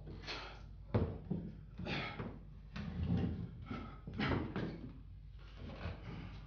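Knocks, thuds and rustling of objects being handled and set down on a cloth-covered table as someone settles at it.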